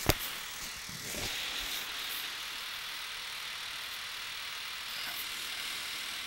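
Steady background hiss, with one sharp click just after the start and a short, fainter low knock about a second in.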